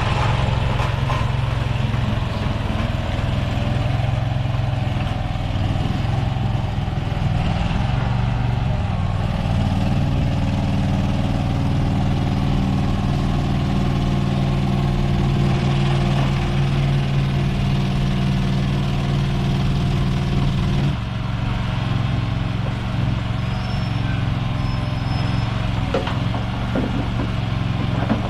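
Small skid steer's engine running steadily, getting louder and fuller about nine seconds in and easing back about twenty-one seconds in as it works. A few sharp knocks near the end.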